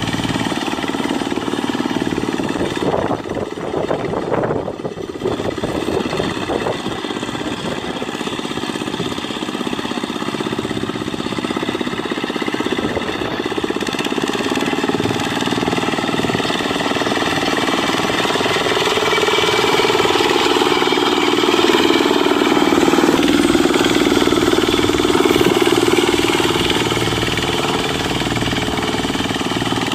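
Dongfeng single-cylinder diesel engine on a Quick Impala two-wheel hand tractor running steadily under load while working a paddy field, growing louder for several seconds past the middle.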